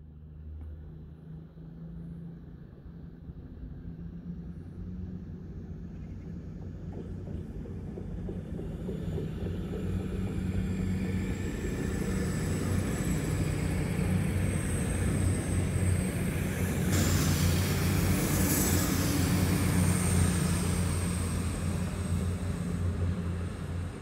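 Diesel train drawing near with its engines running, growing steadily louder and loudest in the second half, with a thin high whistle over the low engine note.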